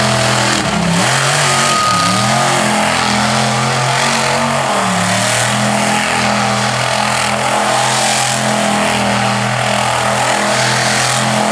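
Monster truck engine revving hard as the truck spins in the dirt. Its pitch drops and climbs back a few times in the first five seconds, then holds high and steady.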